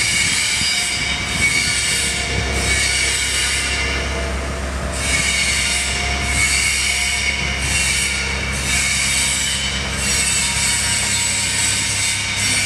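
Liebherr A920 wheeled excavator at work: a diesel engine runs steadily under a high-pitched metallic squealing that fades in and out every second or so as the machine swings and moves its boom.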